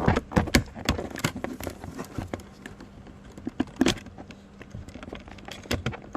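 Scattered sharp plastic clicks and knocks from the window switch assembly and its trim housing being worked free by pushing in the release tab and pulling out, in bunches near the start, around four seconds in and near the end.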